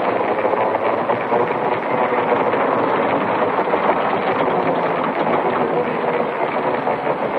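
Continuous dense mechanical noise at a steady loudness, with no break.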